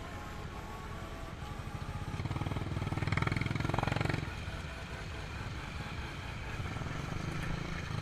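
Bajaj Pulsar motorcycle's single-cylinder engine running at low speed over a rough dirt track. It gets louder for a couple of seconds in the middle as the throttle is opened, then eases back to a steady putter.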